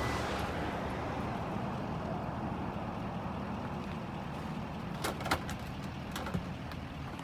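Steady outdoor rumble and hiss that eases slightly, with a few light clicks about five seconds in.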